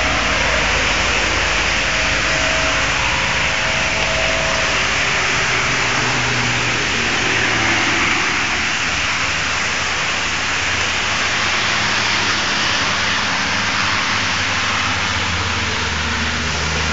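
Steady hiss of heavy rain and wet-road noise around a Nissan X-Trail, with a low hum underneath.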